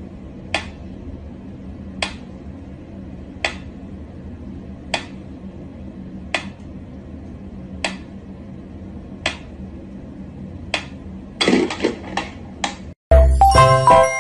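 Mechanical pendulum metronome ticking slowly, one sharp tick about every second and a half, over a faint steady hum. Near the end come a quick run of irregular clicks and knocks. Music starts about a second before the end.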